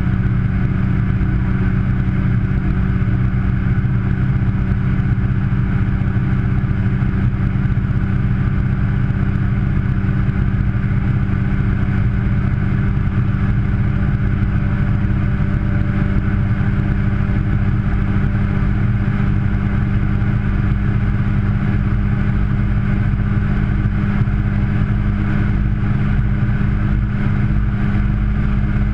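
Washing machine running, heard from inside its drum: a steady mechanical drone with an unchanging low hum.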